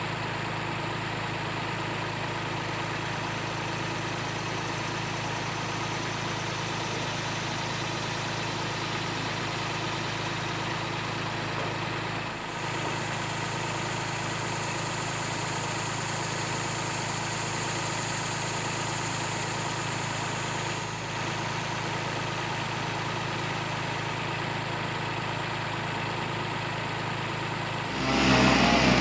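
An engine idling steadily. About a second before the end, a much louder engine starts revving, rising and falling in pitch.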